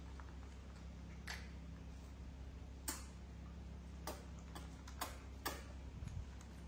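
A few sharp, irregularly spaced clicks or taps, about five in all, over a steady low hum.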